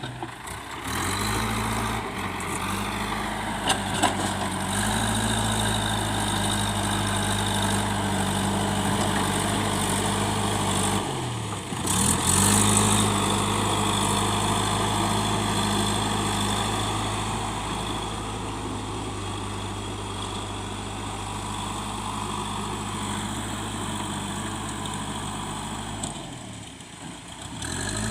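Backhoe loader's diesel engine running steadily. Its speed sags and picks back up about twelve seconds in and again near the end, with a few sharp clanks early on.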